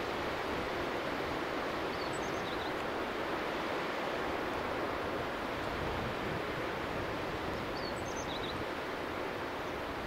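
Steady rush of water from Oshinkoshin Falls, an even noise with no change. Faint high chirps come twice, about two seconds in and again near eight seconds.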